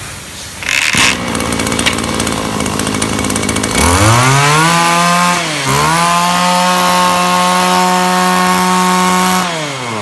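Backpack brush cutter's small petrol engine, pull-started with its power-assist recoil and catching about a second in. It idles, is revved up to high speed about four seconds in, dips briefly, then holds high revs and winds back down near the end.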